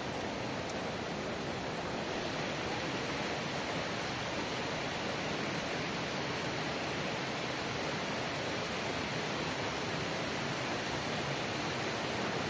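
Steady rushing of flowing river water, an even hiss that stays unchanged throughout.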